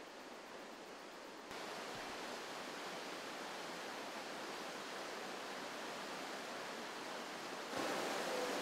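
River whitewater rapids rushing: a steady, even water noise. It grows louder in two steps, about a second and a half in and again near the end.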